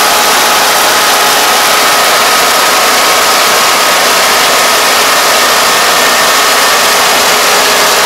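Kubota ER470 combine harvester's diesel engine and threshing machinery running steadily under load while it cuts rice, a dense continuous mechanical noise with a faint steady whine on top.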